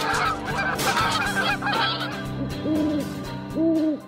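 A flock of geese honking, many calls overlapping, with two louder, lower honks near the end before the sound fades.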